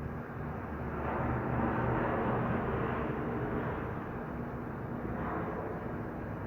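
Study-room ambience: a steady low hum under a soft background hiss, with a rushing noise that swells up about a second in, lasts a few seconds and fades, then a shorter, weaker swell near the end.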